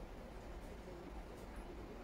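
Quiet room tone: a low steady hum and faint hiss, with no distinct clinks or knocks.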